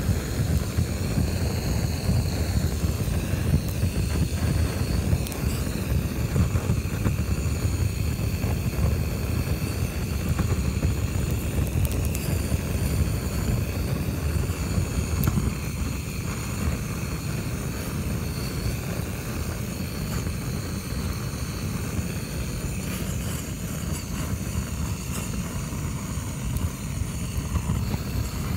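Handheld gas torch burning steadily with a constant low rushing roar as its flame singes the fur off a small animal's carcass.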